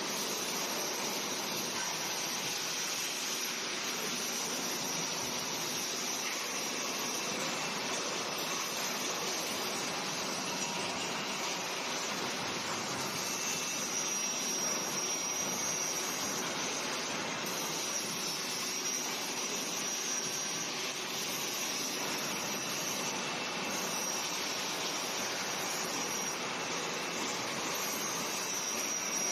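Angle grinder grinding a bent steel-tube frame: a steady hiss with a faint high whine that wavers now and then.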